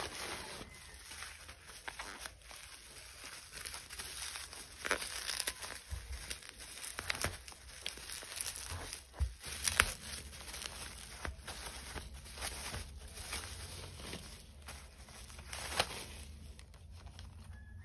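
Plastic courier pouch and bubble wrap crinkling and tearing as a parcel is unwrapped by hand and cut open with a knife, in irregular crackles with one sharp snap about ten seconds in.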